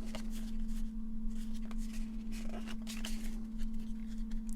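Pokémon trading cards being handled and slid one over another: a run of short, crisp flicks and rustles of card stock.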